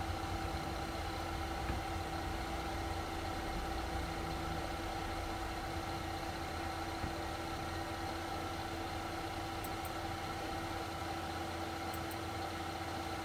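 Steady machine hum with a few constant tones over a low rumble, and a few faint clicks about two-thirds of the way in and near the end.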